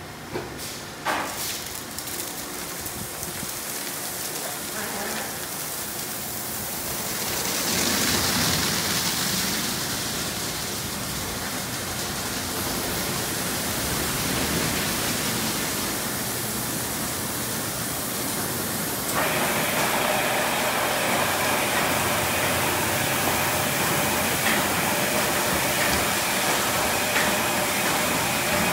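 Automatic car wash tunnel at work on a car: water spraying while spinning cloth wrap brushes and a hanging cloth mitter curtain scrub it, a steady rushing swish. There are a few clacks in the first second or so, the spray swells louder about eight seconds in, and from about nineteen seconds the swishing grows louder and busier.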